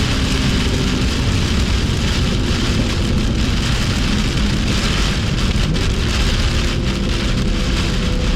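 Loud hiss of heavy rain and water spray around a BMW M2 lapping a soaked track, with its engine note faint underneath and slowly rising in the second half.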